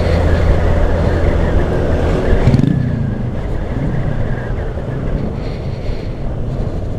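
Motorcycle running at speed with heavy wind rush. About two and a half seconds in, the throttle closes and the sound drops suddenly to a quieter, steady run.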